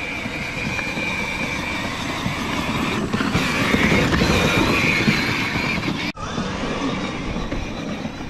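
Kids' Power Wheels Mustang ride-on on rubber tires driving along: the electric drive motors and gearboxes whine steadily over the rumble of the tires. The sound cuts out for an instant about six seconds in.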